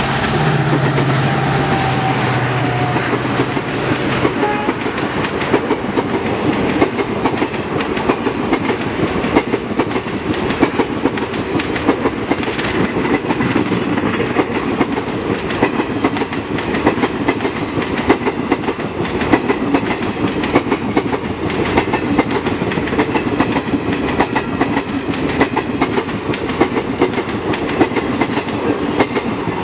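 EMD WDP4D diesel locomotives' engines drone for the first few seconds as they pass, then the express train's coaches roll by at speed with a steady, rapid clickety-clack of wheels over the rail joints.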